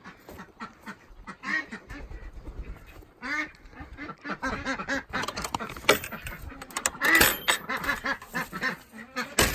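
A flock of domestic ducks quacking repeatedly in short calls, getting louder and busier, with a few sharp knocks about two-thirds through.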